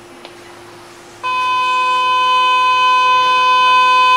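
A loud, steady electronic buzzer tone starts abruptly about a second in and holds without change for about four seconds: a station platform departure buzzer heard from inside a stopped train.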